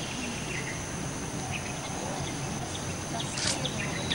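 Outdoor ambience of insects chirping over a steady high hiss, with short scattered chirps and a brief scrape about three and a half seconds in.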